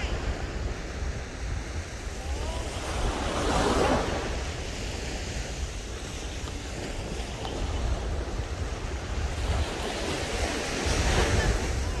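Small surf waves breaking and washing up the sand, swelling twice, about four seconds in and again near the end, with wind buffeting the microphone in a steady low rumble. A few faint gull calls come through the surf.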